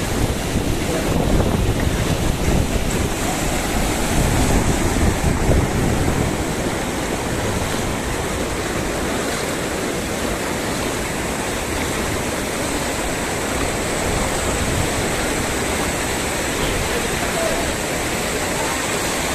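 Floodwater from an overflowing lake running fast across a road, a steady rush of water. Wind buffets the microphone in the first few seconds.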